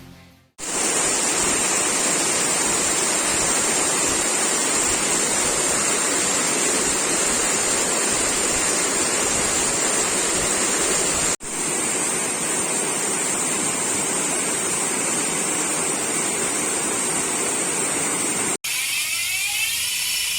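Steady rush of flowing water, a stream or waterfall, with no let-up except two abrupt breaks where the recording cuts to another take.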